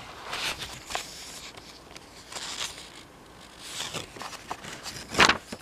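Pages of a book being turned and handled: several soft papery rustles, with a sharper, louder rustle near the end.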